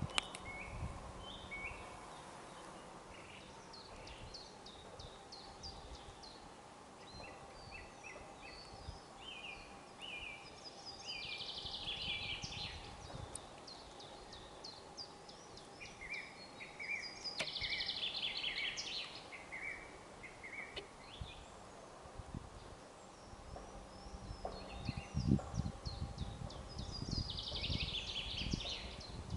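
Several small songbirds singing, with short trilled phrases every few seconds over a steady low rumble; a few low thumps come near the end.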